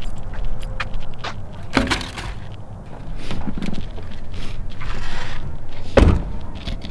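A low rumble with scattered knocks and rustling, a knock about two seconds in, and a heavy thump near the end.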